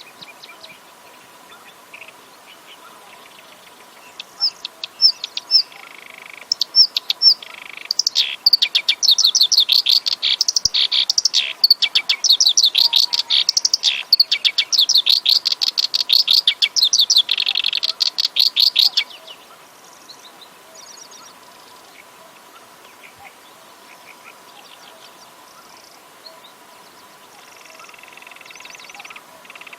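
Black-browed reed warbler singing: a few separate high notes, then a fast run of rapidly repeated notes that lasts about ten seconds and stops abruptly about two-thirds of the way through.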